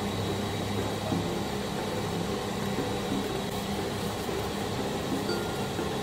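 Soft background music with sustained low notes, over a steady noisy hum.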